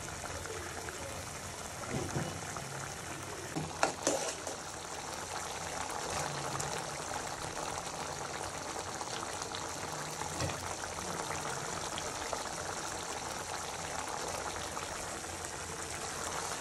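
Thin potato curry bubbling and simmering in an aluminium kadai, a steady hiss, with a spoon knocking against the pan a few times.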